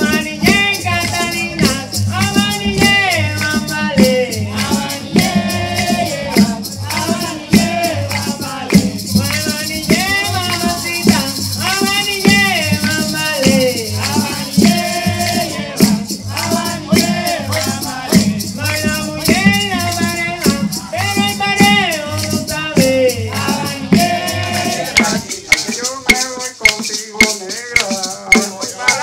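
Traditional sexteto ensemble playing: a sung melody over steady maraca shaking and low bass notes. Near the end the singing and bass stop, leaving hand-drum strikes.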